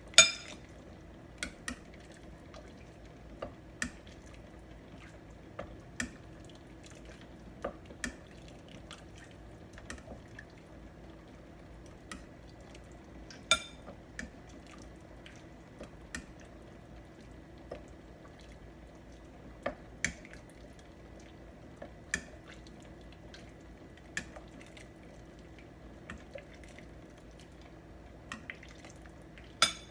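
Metal ladle clinking against a stainless steel stockpot while broth is ladled out and poured into a bowl, with drips and small splashes of liquid. Sharp clinks come every second or two, the loudest right at the start, about halfway through and near the end, over a steady low hum.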